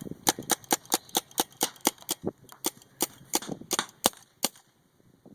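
Spyder MR100 Pro paintball marker firing a string of shots, each a sharp pop, about five a second for the first two seconds, then slower, the last shot about four and a half seconds in. The marker is set to about 260 fps.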